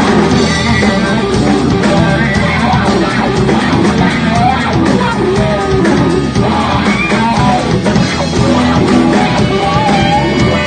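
Live rock band playing loudly: electric guitar over drums with cymbals keeping a steady beat, with a voice singing over the top.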